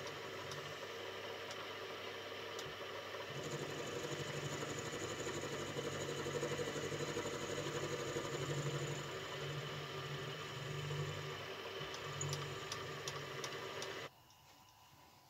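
Mini milling machine running, its end mill cutting a taper along a small metal slide bar as the table is hand-fed. A steady motor whine under the cutting noise, which grows a little stronger about three seconds in and stops suddenly near the end.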